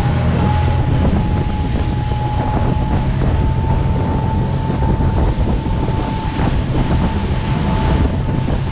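Engines of a fast tour boat running steadily at speed, a low drone with a thin high whine, over wind buffeting the microphone and the rush of spray from the wake.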